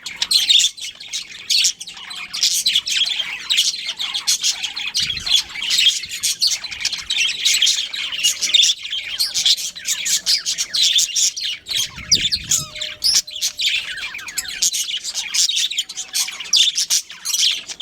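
A flock of small cage birds chirping and chattering continuously in many overlapping quick notes, starting abruptly.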